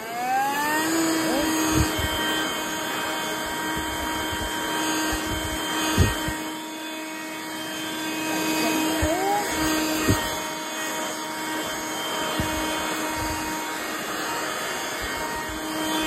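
A Hihhy cordless handheld vacuum cleaner's motor spins up with a rising whine in the first second, then runs at a steady whine as it sucks up kitty litter. A few short knocks come through at intervals.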